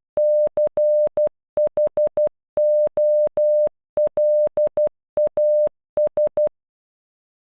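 A single steady electronic beep tone keyed as Morse code in short dots and long dashes, spelling the end of "Nicholas": C H O L A S (-.-. .... --- .-.. .- ...). It stops about six and a half seconds in.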